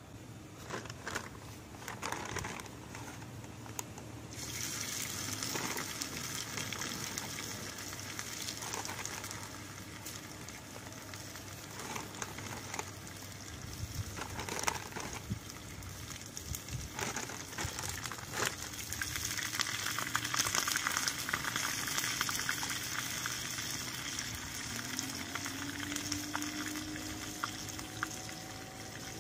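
Pot boiling on a portable gas camping stove: a steady hiss and bubbling that sets in sharply about four seconds in, with small scattered clicks and crackles.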